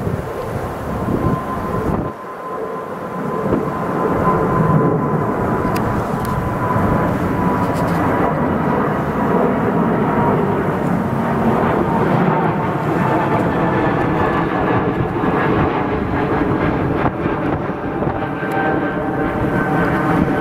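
Swiss Airbus A220-300's Pratt & Whitney PW1500G geared turbofan engines at climb power as the airliner passes overhead after takeoff: a loud, steady jet noise with a thin whine that slowly falls in pitch.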